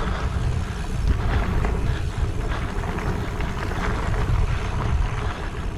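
Mountain bike riding over a dirt trail: a steady rumbling rush of tyre and ride noise with scattered small clicks and rattles.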